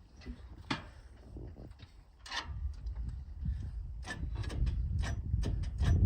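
Scattered metal clicks and clanks of booster cable clamps being handled and clipped on at a battery, over a low rumble that grows louder from about two seconds in.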